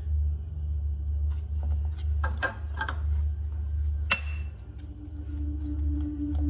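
Silicone spatula scraping and knocking against a small metal saucepan as sugar is stirred into a thick milk and corn-flour paste, with one sharp tap about four seconds in, over a steady low hum.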